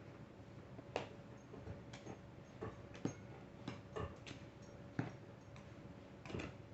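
Short sharp clicks, roughly one a second with a few extra ones in between, over a faint steady hum.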